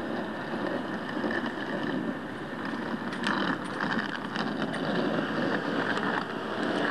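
Steady city street traffic noise at a road crossing, with a few light clicks about three seconds in.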